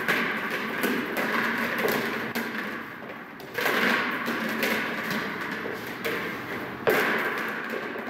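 Footsteps on a carpeted floor with a few thumps; the loudest, sharp thud near the end fits a rubber ball dropped onto the floor.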